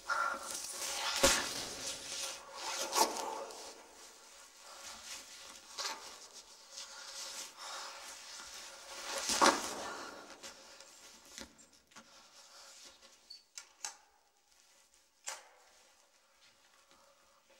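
Rustling and handling sounds of a person dressing: a track jacket brushing and objects being picked up, with a few sharp knocks, the loudest about a second in and again about nine seconds in.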